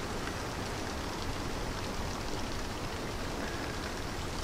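Steady, even hiss of outdoor background noise, with no distinct sounds standing out.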